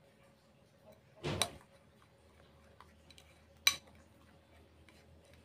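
Metal spoon stirring a drink mixture in a ceramic bowl, clinking against the bowl twice: once about a second and a half in, and a sharper, briefly ringing clink a couple of seconds later, with a few faint taps between.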